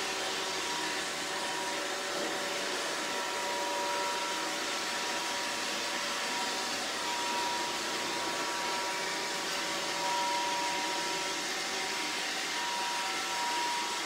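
iRobot Roomba robot vacuum running, a steady whir with a thin high whine.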